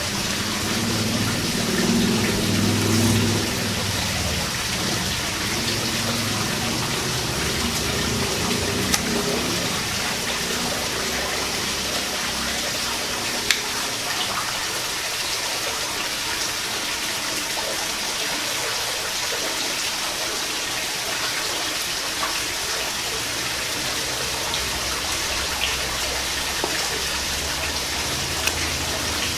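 Steady rush of falling water, an even hiss that doesn't let up, with a few small sharp clicks over it.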